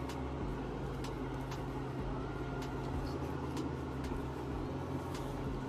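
A steady low hum with faint scattered clicks.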